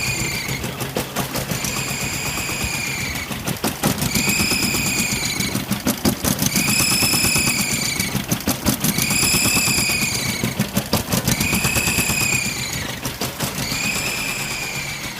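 Toyota 22R four-cylinder engine running with a rapid ticking clatter. Over it comes a high squeal that repeats about every two and a half seconds, each one rising slightly then falling in pitch. The owner suspects the squeal comes from an EGR or vacuum leak.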